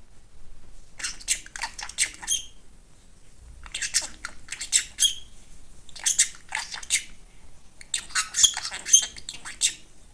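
Budgerigar chattering and warbling in four quick bursts of rapid chirps, with short pauses between.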